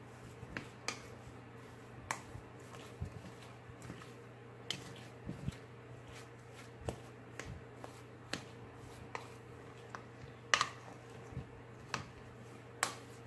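Plastic spoon stirring and pressing clay slime in a plastic bowl: irregular sticky clicks and pops, a couple louder ones near the end.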